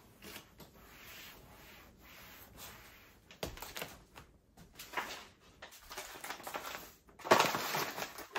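Paper flour packets being handled in a plastic basket: faint rustling, a soft knock about three and a half seconds in, then louder paper crinkling near the end.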